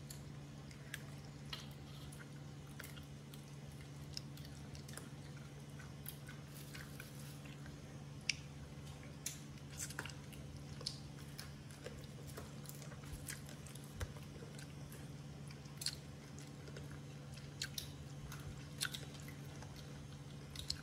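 Two baby macaques chewing and biting grilled meat: scattered, irregular wet smacks and clicks of chewing over a steady low hum.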